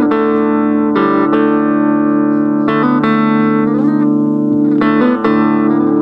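Guitar music: plucked notes ringing out over a held low drone, with a few notes sliding up in pitch about midway.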